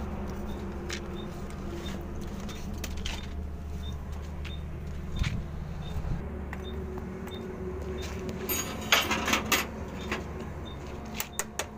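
Clicks and knocks of a 12-volt truck battery being handled, carried by its handle and set down in the battery box, with a cluster of sharp knocks about nine seconds in and a few more near the end, over a steady low hum.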